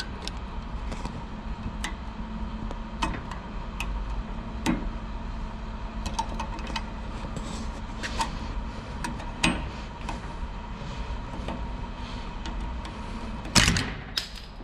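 Steel screwdrivers clicking and scraping against a car thermostat and its housing as the thermostat's spring is pressed down to seat it, over a steady low hum. A louder clatter comes near the end.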